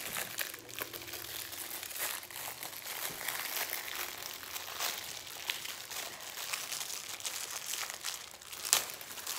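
A clear plastic bag crinkling and crackling as it is pulled open and handled around a plastic drink bottle. There is a single sharp click near the end.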